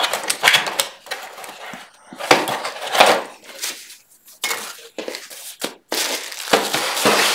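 Packaging being handled: a metal router pressed down into its cardboard box, then plastic wrap and a paper manual laid over it, rustling and knocking in four short bursts.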